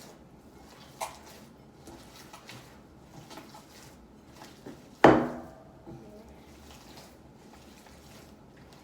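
Kitchen dishes and utensils being handled: a light tap about a second in, faint scattered clicks, and one loud clink about five seconds in that rings briefly.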